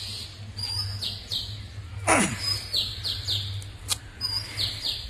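Small birds chirping in short repeated notes, with one loud sharp falling squeak about two seconds in and a steady low hum underneath.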